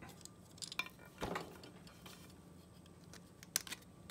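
Faint clicks and rubbing of a hard plastic 3D-printed string ligature being handled on a saxophone mouthpiece, with a sharper click about three and a half seconds in.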